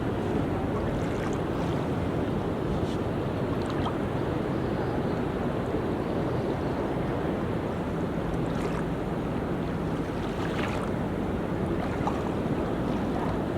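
Ocean waves washing steadily onto a beach, a continuous rushing surf with a few brief hissing splashes.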